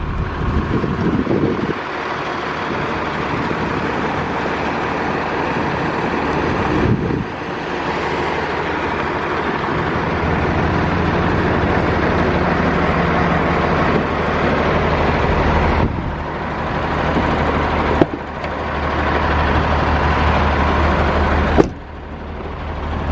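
A motor vehicle's engine running steadily: a constant rumble with a low hum, dropping out briefly a few times.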